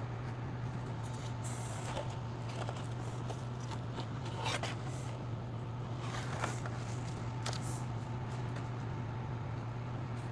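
A steady low hum throughout, with a few light clicks and scrapes of small parts being handled, the sharpest about four and a half and six and a half seconds in.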